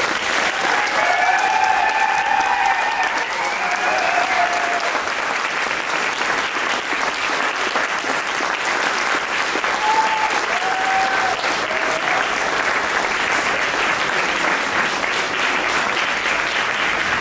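Audience applauding steadily at the end of a musical piece, with a few voices calling out in the first few seconds and again about ten seconds in.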